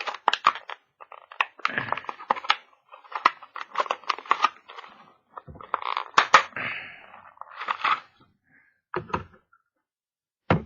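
Stiff plastic blister packaging crackling and crinkling as it is handled, with sharp clicks and snaps, in dense clusters that thin out after about eight seconds to a few last clicks.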